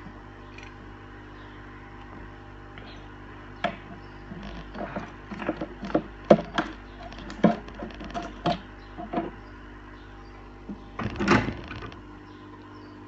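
Irregular sharp clicks and taps of small tools and phone parts being handled on a hard work surface during iPhone 5C disassembly, with a quick cluster of rattly taps near the end, over a steady low electrical hum.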